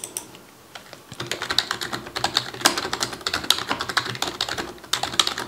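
Typing on a computer keyboard: a quick, continuous run of keystrokes starting about a second in.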